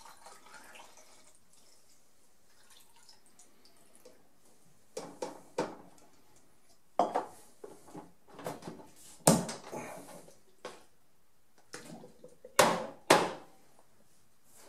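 C-41 bleach bath pouring briefly into a plastic film developing tank. From about five seconds in comes a run of sharp plastic clicks and knocks, the loudest near the end, as the tank's lid is fitted and pressed down.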